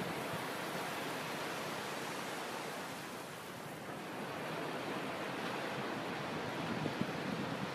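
Sea waves breaking on a beach, a steady rushing surf that eases slightly about halfway, with a few low bumps near the end.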